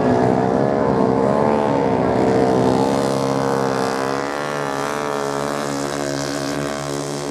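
Motorcycle engines racing on a beach sand track, their pitch rising and falling as the riders work the throttle. Louder for the first three seconds, then a little softer with a steadier note.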